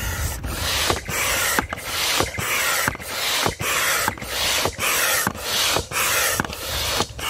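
Manual air pump inflating an inflatable kayak's side chamber through a hose: a rush of air on each stroke, about two strokes a second, with a short click between strokes.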